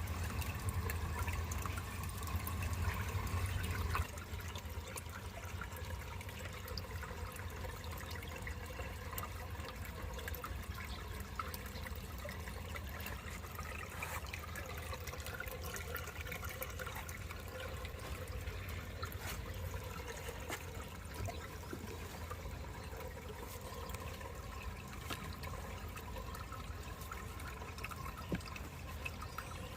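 Water trickling and splashing steadily in an aquarium, over a low hum; the sound drops a little about four seconds in.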